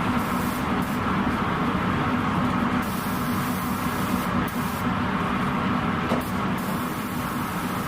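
Iwata W101 spray gun hissing as clearcoat is sprayed, the hiss starting and stopping with several short passes, over a steady low hum.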